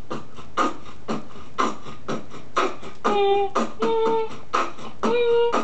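Human beatboxing: a steady beat of mouth-made drum sounds, about two a second. About three seconds in, pitched vocal notes that step between a lower and a higher pitch join the beat.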